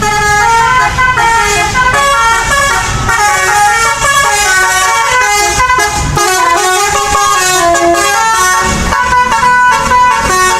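An Indonesian bus's 'telolet' musical horn playing a quick tune, several horn tones sounding together and stepping from note to note, over a low rumble.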